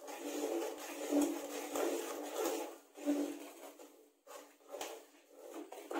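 Metal ladle stirring and scraping ground flax seed and sesame powder into thick jaggery syrup in a metal pan. Repeated stirring strokes in the first half thin out to a few separate scrapes and taps in the second half.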